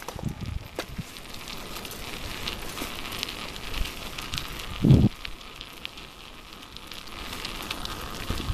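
Steady crackling and rustling with many small scattered clicks, from grit crunching and camera handling while moving along a rough, gravelly road. A single dull thump comes about five seconds in.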